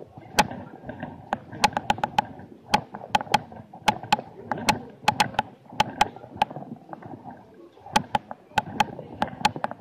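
Busy pedestrian street: a crowd murmurs steadily while many sharp clicks and knocks come irregularly, often several a second.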